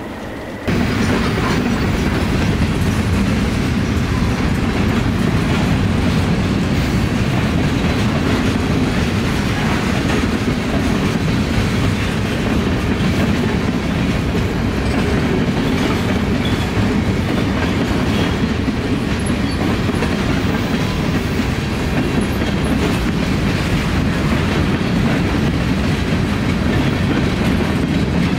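A freight train's hi-cube boxcars rolling past, their steel wheels clicking over the rail joints in a steady rumble that begins suddenly under a second in.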